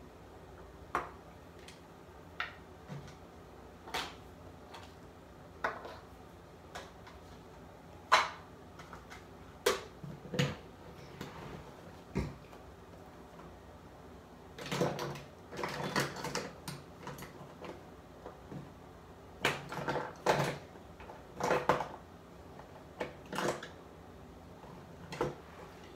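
Scattered clicks, taps and knocks of small makeup items being picked up and put down, with denser bouts of rummaging and clattering about two-thirds of the way through.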